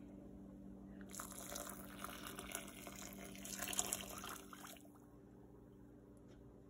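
Boiling water poured from a glass measuring cup into a glass mixing bowl of sugar, splashing for about four seconds and stopping about five seconds in, over a steady low hum.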